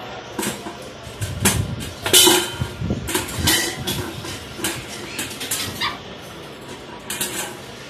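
Irregular metal clattering and rattling from a puppy's stainless wire cage and steel bowl: a string of sharp knocks, loudest about two seconds in.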